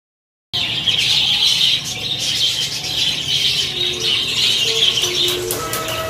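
A large flock of budgerigars chattering and warbling together, with wings fluttering; it cuts in suddenly about half a second in.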